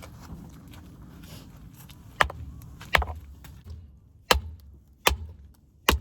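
Axe chopping firewood: about five separate sharp chops, irregularly spaced roughly a second apart.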